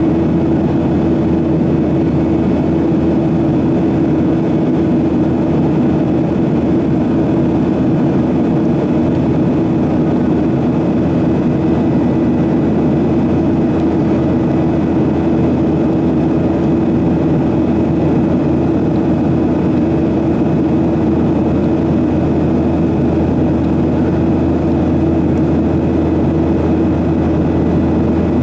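Boeing 737-800 cabin noise in flight: the steady drone of its CFM56-7B turbofans and rushing airflow, with a constant low hum running through it.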